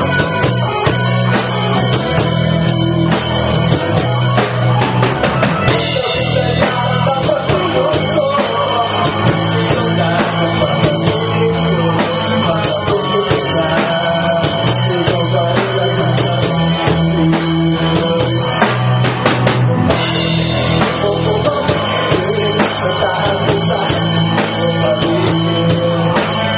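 Small rock band playing live in a room: drum kit, bass guitar, electric guitar and strummed acoustic-electric guitar, with a male singer's voice at the microphone. The playing is loud and steady, with no breaks.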